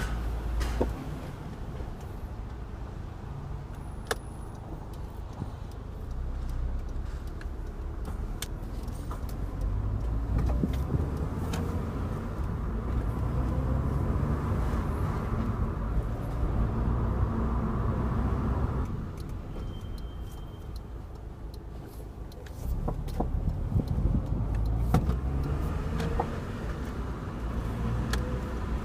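Subaru Impreza WRX STI (GRB) heard from inside the car, its engine running with a low hum that rises and falls. Sharp clunks come at scattered moments from the right front suspension as the steering is turned right and back: the bearing inside the right front strut's upper mount has failed.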